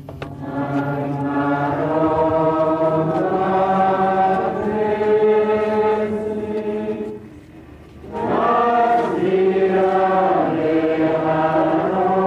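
A group of voices singing a slow, chant-like hymn in long held notes, in two phrases with a short breath about seven seconds in.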